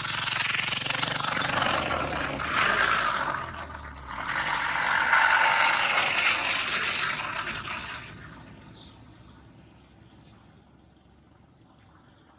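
Vehicles passing on the road: a loud rush of tyre and engine noise that swells twice and fades out about eight seconds in. A single short high chirp follows near the end.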